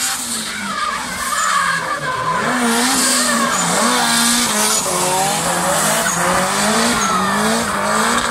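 Drift car's engine held at high revs, its pitch rising and falling again and again, while the tyres squeal and skid through a long sideways slide.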